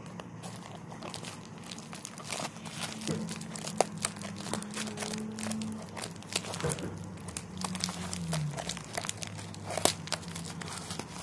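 Scissors cutting into a sealed plastic mailer bag, with irregular sharp snips and the thin plastic crinkling as it is handled; the loudest snaps come about four seconds in and near the end. A faint steady low hum runs underneath.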